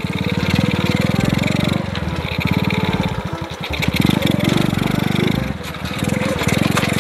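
Small motorbike engine running with a rapid, even firing beat, the revs rising and falling as it rides, easing off briefly twice.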